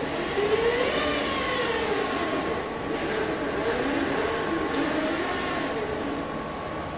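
Drive motors of a four-wheeled Pioneer mobile robot whining as it drives and turns, the pitch rising and falling as its speed changes.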